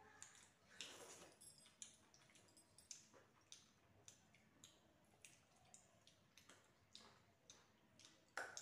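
Faint eating sounds: scattered small clicks from chewing and from fingers mixing rice on metal plates, with one louder click near the end.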